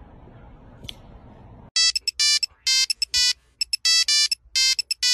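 Electronic phone ringtone: a quick tune of short, loud, buzzy beeping notes in clipped groups, starting about two seconds in after a faint hiss.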